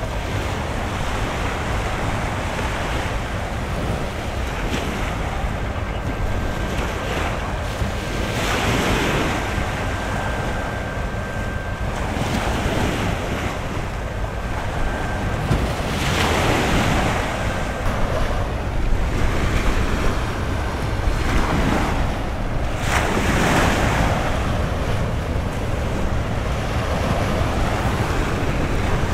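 Wind buffeting the microphone over small waves washing against a rocky shoreline, with a few louder surges of surf every several seconds.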